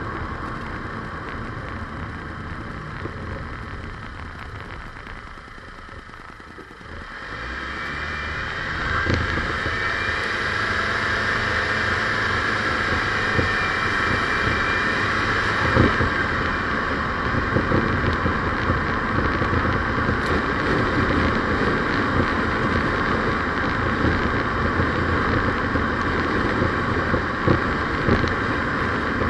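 A road vehicle driving, with steady engine, road and wind noise. It dips quieter for a few seconds, then grows louder about seven seconds in and stays up. A few short knocks, likely from bumps, break through.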